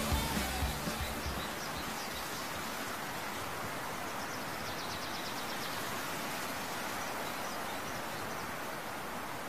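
Steady outdoor background noise, an even hiss, with a faint run of high chirps about halfway through; the tail of rock music fades out right at the start.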